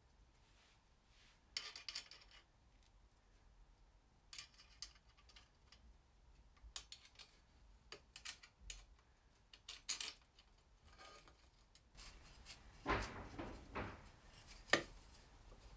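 Metal exhaust link pipe being worked onto a KTM Duke 390's exhaust header: faint scattered metal clinks and scrapes, with louder scraping and a sharp clink near the end as it goes into place.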